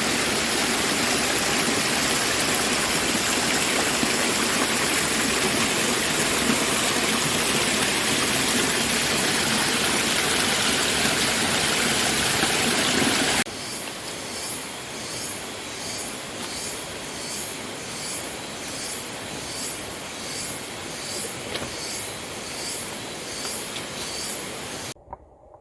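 Waterfall: a loud, steady rush of falling water. About halfway through it cuts off abruptly to quieter forest ambience, with a high-pitched pulsing call repeating a little more than once a second. Near the end the sound drops away sharply.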